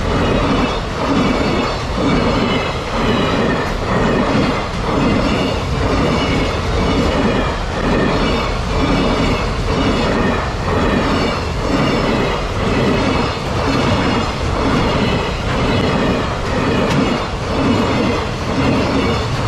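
Freight train passing close by: the wagons' wheels clatter over the rail joints in a steady, repeating rhythm.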